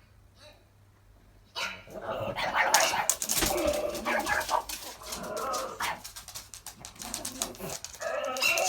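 A dog suddenly starts barking like crazy after a near-silent second and a half: a dense, loud run of barks with a short lull around the middle.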